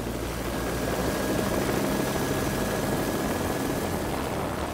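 Helicopter taking off, heard from inside its open, doorless cabin: steady turbine whine and rotor beat, growing louder about a second in as it lifts off.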